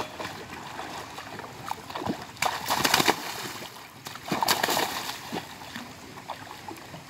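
Pond water splashing as a large netted fish thrashes against men wading waist-deep, with two loud bouts of splashing about two and a half and four and a half seconds in.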